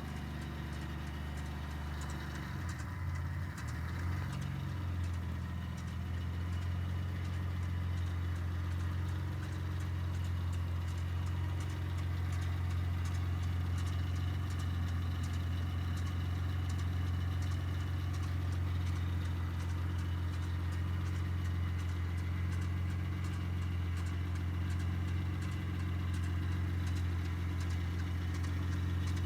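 Mitsubishi 3000GT V6 engine idling after a cold start, its note wavering for a couple of seconds early on and then settling steady. A faint, regular ticking runs over the idle: the noise from the engine that the owner is documenting.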